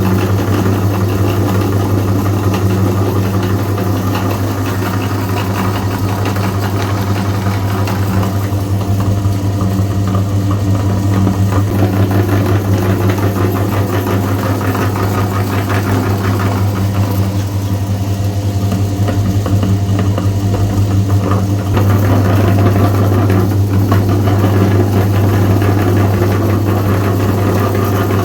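Electric meat grinder running steadily under load as cookies are fed through it: a constant motor hum with a rough grinding noise over it. The hum steps up slightly about 22 seconds in.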